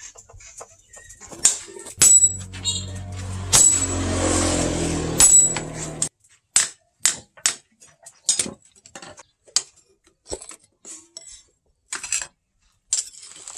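Hammer striking a hot steel knife blank on an anvil: sharp, separate metallic strikes about one to two a second in the second half. Before that, a few seconds of steady rushing noise with a low hum that cuts off suddenly.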